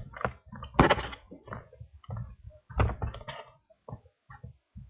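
A person burping in a rapid string of short, rough burps, the loudest about a second in and another loud one near the three-second mark.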